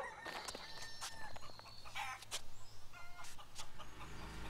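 Chickens clucking: a handful of short calls scattered through, over faint background noise.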